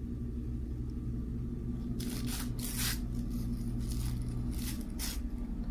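Tracing paper being peeled off a slab of hardened sugar candy, crinkling and tearing in a few short bursts from about two seconds in, over a steady low hum.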